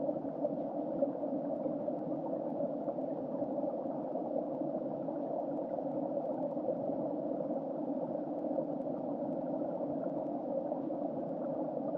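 Creek water heard underwater through an underwater camera's housing: a steady, muffled churning rush with no distinct events.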